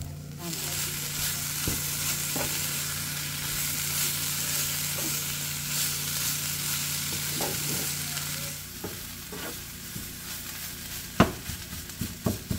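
Turkey berries sizzling as they fry in hot oil with the tempered spices and coconut, stirred in the pan. The sizzle starts about half a second in and drops away after about nine seconds. Near the end come a few sharp knocks of a utensil against the pan.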